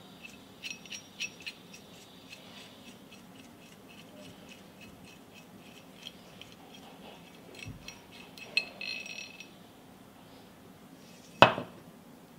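Runs of small, rapid metallic ticks as the threaded knob is unscrewed by hand from a Rex pipe cutter's handle, then one loud sharp metal clink near the end.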